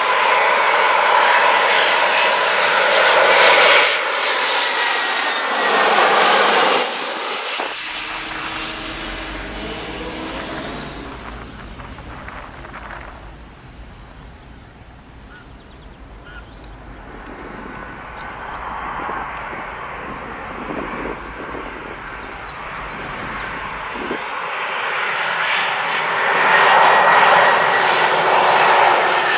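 Jet airliner on landing approach passing low overhead: engine whine and rush loud for the first seven seconds, then cutting off abruptly. A quieter low rumble of road traffic follows, until another airliner's engines grow steadily louder on approach near the end.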